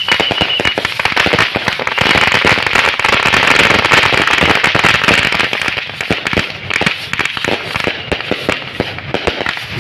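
Fireworks and firecrackers going off in a rapid, dense string of sharp cracks and pops, with a loud hiss between about two and six seconds in.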